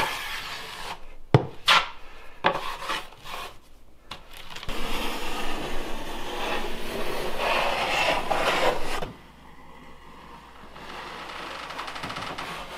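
Wide drywall knife scraping and spreading joint compound across drywall. It starts with short strokes, then a long continuous scrape of about four seconds, then goes quieter near the end. This is the second coat of compound going on.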